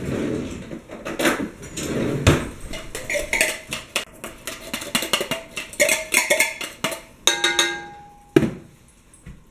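Metal spoon clinking and scraping against a can of hot dog chili and a saucepan as the chili is scooped out into the pot, with many quick clicks and clatters. A short metallic ring comes about three-quarters of the way in, followed by a sharper knock.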